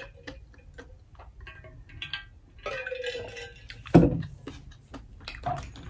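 Close-up eating and drinking mouth sounds: small wet clicks and smacks, with swallowing from a drink bottle and a short hum. A single heavy thump about four seconds in, as the insulated metal bottle is set down on the table.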